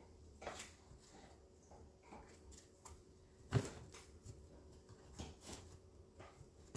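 Faint clicks and handling noise of hands working at a Stihl MS 250 chainsaw's plastic handle housing, with one sharper plastic click about three and a half seconds in.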